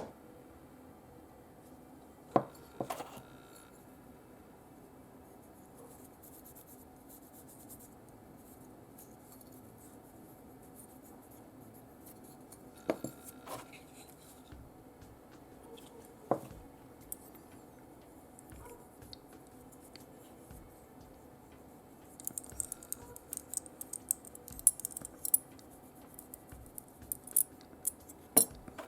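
Small metal tools and die-cast parts handled on a workbench: a few sharp clicks, then a run of quick, light scratching and tapping on metal in the last several seconds.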